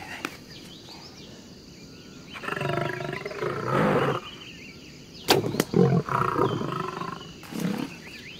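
Male African lion growling in several bouts at close range. A sharp crack about five seconds in, the compound bow's shot, is the loudest sound, and more growling follows it.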